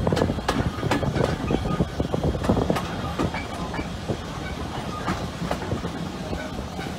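A railway carriage running along the line, heard from its open window: a steady rumble of the wheels on the rails with many short, irregular clicks and knocks from the wheels over the track.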